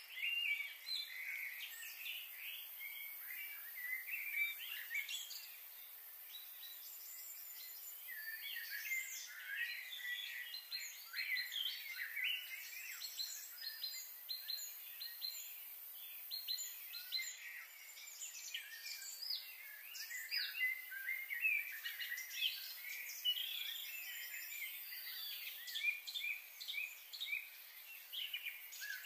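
Many small birds chirping at once, a busy chatter of short, quick high calls that never stops.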